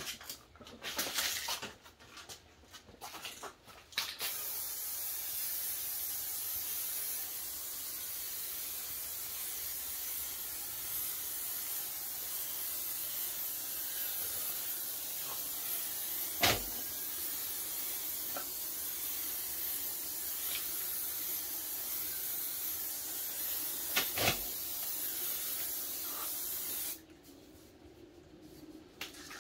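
Aerosol spray-paint can hissing steadily as paint is sprayed onto a plastic bumper grille, after a few seconds of short, irregular handling sounds. Two sharp knocks come partway through, and the hiss stops shortly before the end.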